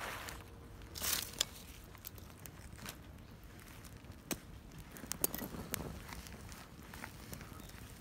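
Small twig-and-paper fire crackling, with scattered sharp pops, while dry leaves and twigs rustle as they are handled.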